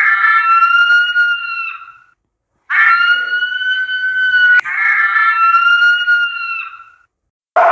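An animal's call from a recording: three long, steady, pitched calls of about two seconds each, every one ending with a slight rise in pitch.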